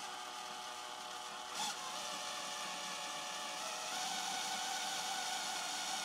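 Makita 18V cordless drill running steadily, its bit boring into the broken-off stub of a grease fitting in a tractor's steel tie-rod ball joint. A brief tap sounds about a second and a half in, and the whir grows a little louder from about four seconds in.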